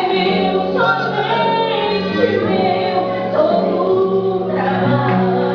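A woman singing a Portuguese gospel hymn over instrumental accompaniment, with long held notes that slide between pitches.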